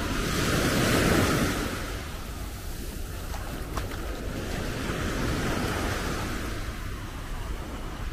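Sea waves breaking on a beach, the surf swelling loudest about a second in and again more softly around five seconds, with wind on the microphone.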